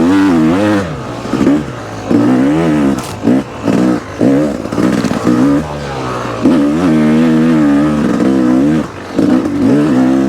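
Yamaha YZF four-stroke single-cylinder dirt bike engine being ridden hard, revving up and down repeatedly as the throttle is worked, its pitch rising and falling every second or so.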